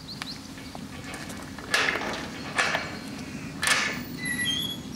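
A crow cawing three times, about a second apart, over a steady low background hum, with a few thin high notes near the end.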